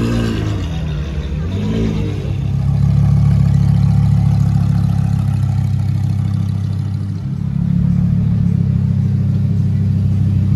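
Lamborghini Huracán STO's naturally aspirated V10 idling with a steady low hum, starting about two seconds in. Before that, a wavering engine note rises and falls.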